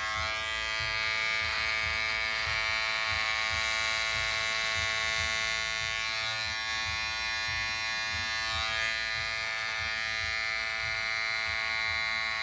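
Electric hair clippers switched on just at the start and running with a steady buzz while trimming a beard.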